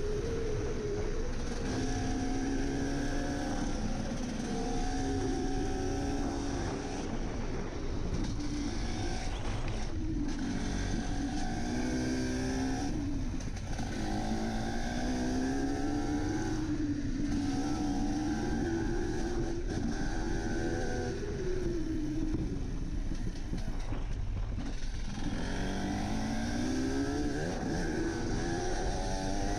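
Enduro motorcycle engine under way, its revs climbing and dropping again and again as the rider accelerates, shifts and backs off, over a steady rushing noise.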